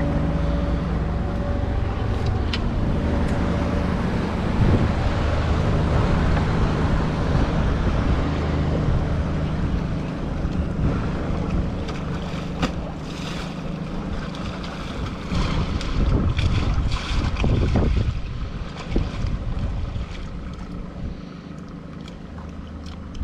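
Wind buffeting the microphone: a heavy low rumble that rises and falls with the gusts, with a few short knocks and clicks in the second half.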